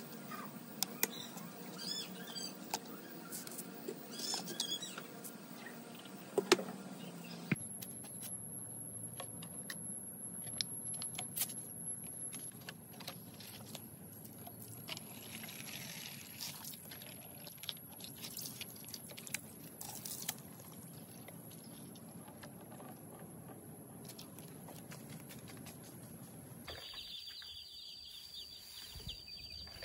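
Scattered light knocks, taps and scraping from a small cement water trough and a plastic water bottle being handled and scrubbed on wet concrete. Near the end, chicks are peeping.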